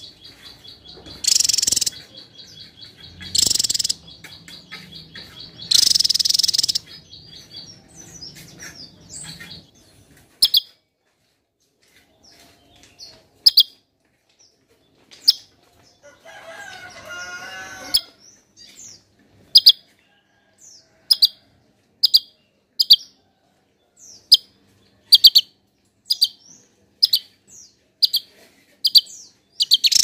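Javan tesia calling. In the first seven seconds there are three loud calls over a steady high trill; after that comes a long run of short, sharp high notes, about one a second.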